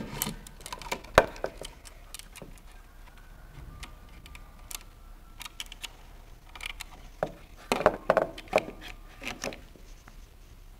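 Wooden wall-hanging frame knocking and clicking against the wall and its metal hanging hooks as it is lifted into place by hand. The light knocks come in a flurry near the start and again about three-quarters of the way through, with scattered single ticks between.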